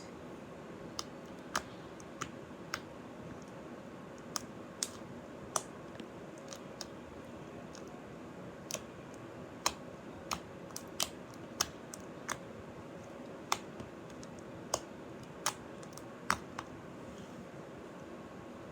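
Slime being poked and pressed by fingers without popping its air bubbles: scattered sharp little clicks, irregularly spaced, over a faint steady hiss.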